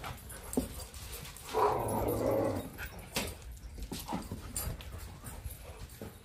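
Dogs greeting one another as a pack, with one loud, noisy dog vocal sound lasting about a second, starting a little over a second and a half in, and scattered light clicks and knocks.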